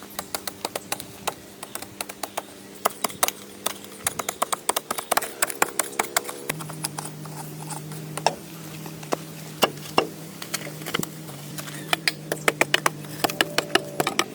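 A rapid, irregular run of sharp knocks and taps, some much louder than others, over a steady low hum that drops to a lower pitch about six and a half seconds in.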